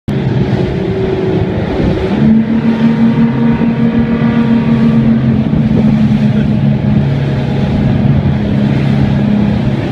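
Outboard motor on a fishing boat under way at speed: a steady engine drone over the rush of the wake and wind. About two seconds in, the drone settles onto a slightly different pitch and holds there.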